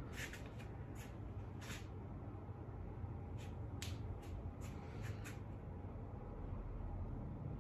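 Brushes and painting supplies being handled beside the easel: a dozen or so short clicks and rustles, most bunched in the middle, over a low steady hum.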